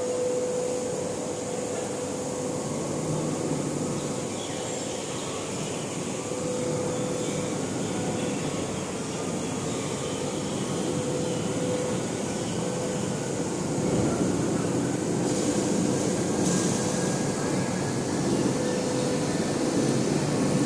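Workshop machinery running with a steady hum and a constant whining tone, getting somewhat louder about two-thirds of the way in.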